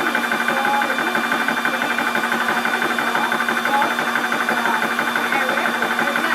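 12 V portable high-pressure PCP air compressor (4500 psi) running steadily with its cooling fan on, its piston pumping in a fast, even rhythm as it fills an air cylinder.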